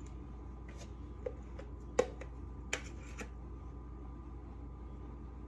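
A few light clicks and clinks of a table knife against the cake plate as whipped-topping frosting is smoothed on a cake. The sharpest click comes about two seconds in. A steady low hum runs underneath.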